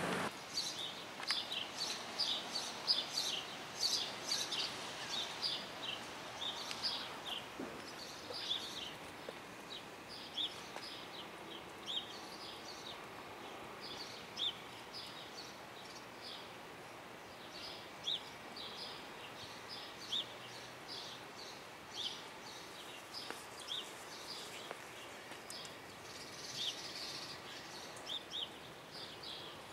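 Small birds chirping: short high chirps, several a second at first, thinning out after about ten seconds, over a steady hum of background city noise.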